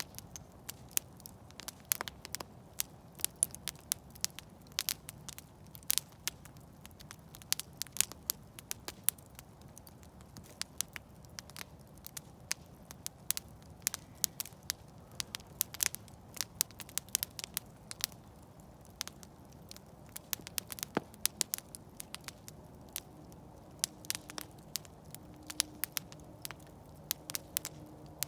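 Campfire crackling: burning wood gives frequent, irregular sharp pops and snaps over a soft, steady low background noise.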